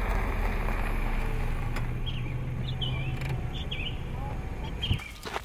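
A small hatchback car driving in and pulling up: a low engine rumble that eases off after about three seconds. Birds chirp over it, and a single thump sounds near the end.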